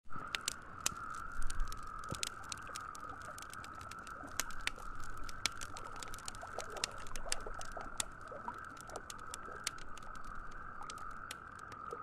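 Campfire crackling: sharp pops and snaps at irregular intervals, over a steady high-pitched drone.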